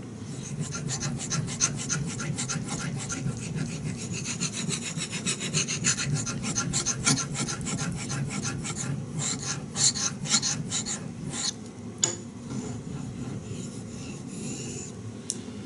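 CPM 3V steel knife blade stroked rapidly back and forth on a wet Shapton 5000-grit ceramic water stone: a steady run of hoarse, rasping strokes, a little softer in the last few seconds.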